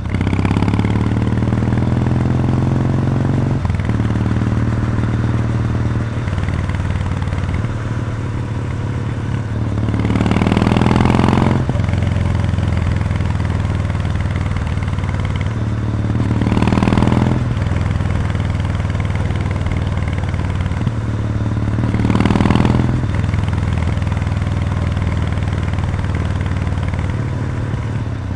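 Kawasaki W800's air-cooled parallel-twin engine running through stock mufflers with the baffles removed, on the move at a steady pace. Three times, about ten, sixteen and twenty-two seconds in, the exhaust swells louder for a second or so as the throttle is opened.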